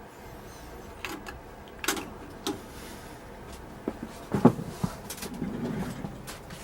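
A cassette tape playing back on a Yamaha K-340 deck: a steady low hiss and hum with a few scattered clicks and knocks.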